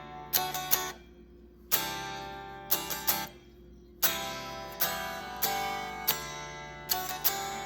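Fender Stratocaster electric guitar strummed, a run of chords, each struck sharply and left to ring and die away, played to test the sound of the tremolo springs in the back of the guitar.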